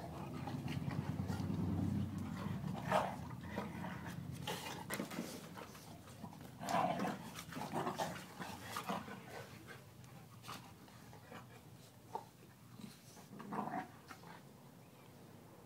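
Two American pit bull terriers, an adult and a puppy, play-fighting: a low growl at first, then scattered short yips and growls that die away near the end.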